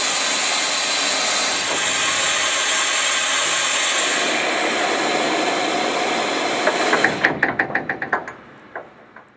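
Compressed air hissing steadily out of the air-operated side-wing cylinders of a 1912 Canadian Pacific wedge snow plow as the spring-return pistons draw the wings in. About seven seconds in the hiss stops and a quick run of knocks, about eight a second, follows and fades away.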